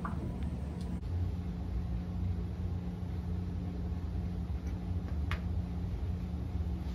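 Steady low hum and rumble of room noise, with a faint click about five seconds in.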